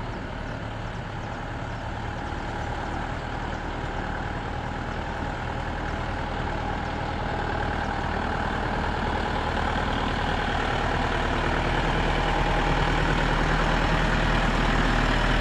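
Volare micro-bus motorhome's engine running as the bus drives slowly toward the camera, a steady low hum that grows louder as it comes near.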